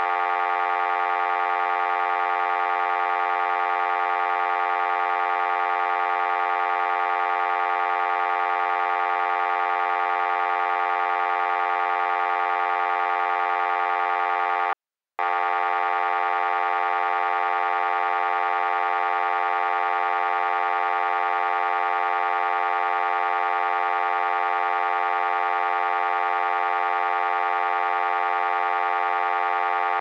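Telephone buzz error tone: a steady, buzzy electronic tone rich in overtones, held without change and broken by a brief silence about halfway through.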